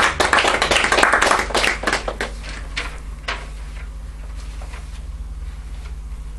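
Small audience applauding, the clapping thinning out and dying away about three seconds in, leaving a low steady hum.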